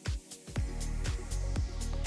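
Electronic background music with a steady beat of about two beats a second; a deep bass part comes in about half a second in.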